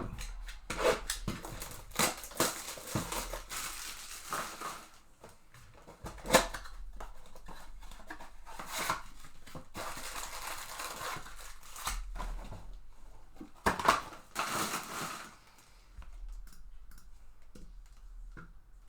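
A trading-card mega box and its wrapped packs being torn open by hand: irregular crinkling and tearing of cardboard and plastic wrapper, with a few sharp snaps, the loudest about six seconds in and again near fourteen seconds. The handling dies down near the end.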